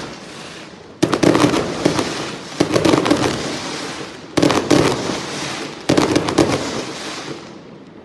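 Celebration fireworks going off in repeated volleys of rapid crackling bangs, a new volley about every one and a half seconds, each fading out; the last dies away near the end.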